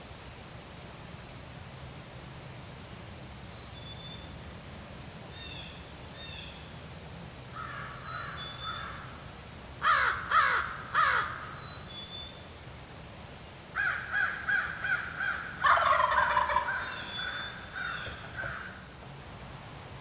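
A wild turkey gobbler gobbling several times in quick rattling bursts, loudest at about ten and sixteen seconds in. Small songbirds chirp faintly in the background.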